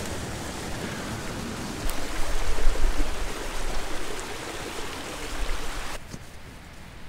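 A small mountain stream running over rocks, a steady rushing of water. A low rumble on the microphone joins it from about two to four seconds in, and the water sound cuts off abruptly about six seconds in.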